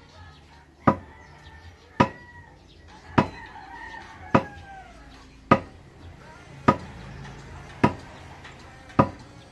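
Sharp, evenly spaced blows, about one a second, eight in all, as from a hammer striking steadily. A rooster crows in the background between the blows.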